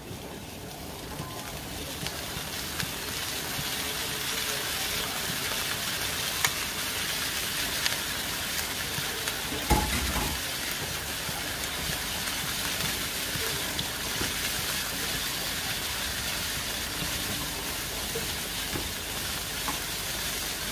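Onions and meat sizzling as they fry in a nonstick wok, a steady hiss that builds over the first couple of seconds and then holds. About halfway through there is a thump as more food goes into the pan, and near the end a utensil stirs through it.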